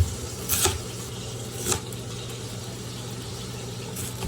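Kitchen cooking sounds: a steady low hum under a faint even hiss, with three short knocks of things being handled.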